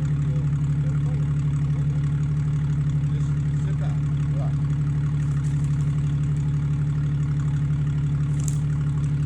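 Jeep Wrangler engine idling steadily, with a short high chirp near the end.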